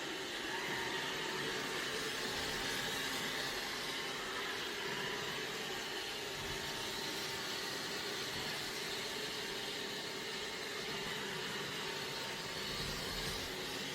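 Xiaomi Robot Vacuum X20 Pro running mid-clean, a steady even whir from its suction motor.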